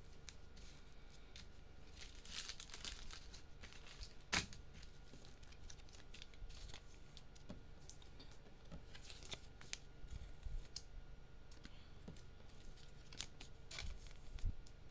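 Faint tearing and crinkling of trading-card packaging, along with cards being handled, in scattered short rustles and a sharp click about four seconds in.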